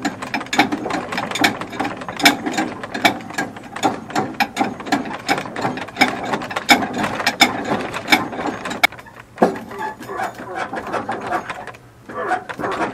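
Ratchet clicking rapidly in irregular runs, pausing briefly about nine seconds in, while a stuck engine is turned over by hand.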